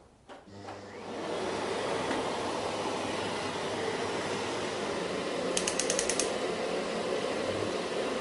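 Kärcher VC 6100 vacuum cleaner switched on, its motor spinning up within about a second and then running steadily with a low hum under a whooshing rush of air. A little past halfway comes a quick run of about eight sharp clicks.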